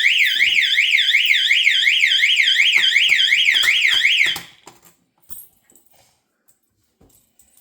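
Electronic fire alarm sounder set off from a pull station, sounding a loud, fast up-and-down sweeping tone of about four sweeps a second. It cuts off abruptly a little over four seconds in, and a few faint clicks and knocks follow.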